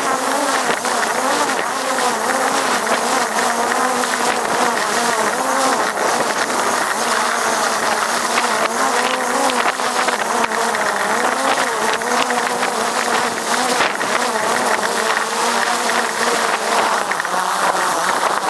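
Multirotor drone's propellers buzzing steadily, the pitch wobbling up and down as the motors adjust, then cutting off suddenly at the end.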